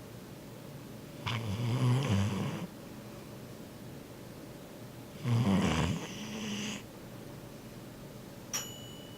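Sleeping yellow Labrador retriever snoring: two loud, rumbling snores about four seconds apart, each lasting a second or more. A brief click and a faint high tone come near the end.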